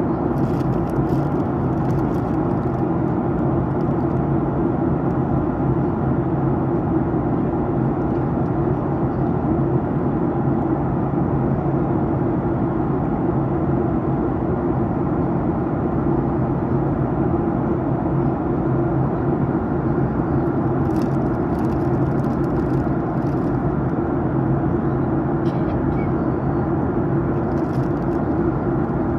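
Steady cabin noise of a Boeing 737-900ER in descent, heard from a window seat: an even rush of airflow over the fuselage with the hum of its CFM56 engines. A few faint brief rustles come near the start and again in the last third.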